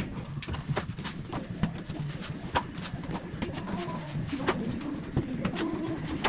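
Pigeons cooing, with sharp scrapes and taps of a steel notched trowel spreading tile adhesive on a wall.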